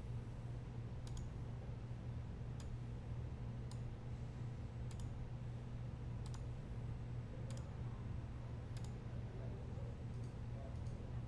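Computer mouse clicking: single sharp clicks about every one to one and a half seconds, over a steady low electrical hum.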